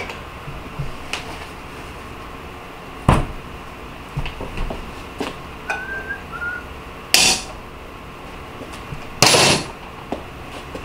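Workshop handling sounds of an aluminum tube and bench vise being worked by gloved hands: one sharp metallic knock about three seconds in, a few light clinks, and two short hissy rustles later on.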